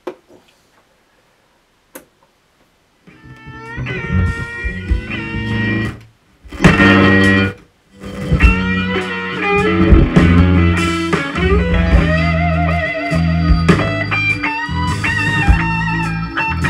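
Guitar music played back through a 1975 Teleton SAQ 408 solid-state stereo amplifier and loudspeaker, with only the left channel sounding because the right channel is dead. A few faint clicks at first, then the music starts about three seconds in and cuts out briefly twice before running on.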